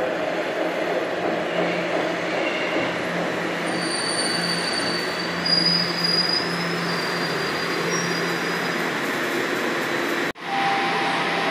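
Toronto Rocket subway train pulling into an underground station, with a steady rumble of the wheels on the rails. A high squeal comes in as it slows, from about four to nine seconds in. The sound cuts out abruptly about ten seconds in and gives way to a steadier hum.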